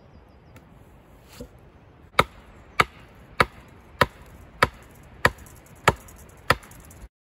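Eight sharp, evenly spaced blows, a little under two a second, starting about two seconds in. The sound cuts off abruptly near the end.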